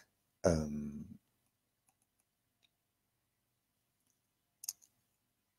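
A man's short voiced sound of under a second just after the start, then near silence broken by a brief double click a little past four and a half seconds in.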